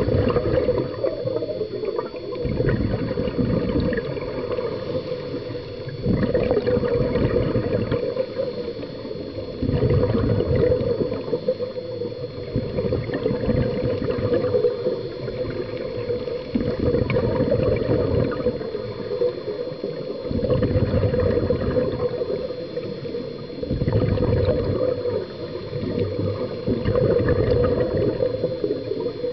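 Scuba regulator breathing underwater: gurgling bursts of exhaled bubbles come back every few seconds, with quieter inhalations in between.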